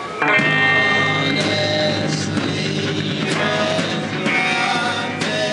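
Live rock band playing loudly on electric guitars, the full band coming in hard about a quarter second in and carrying on with dense, sustained chords.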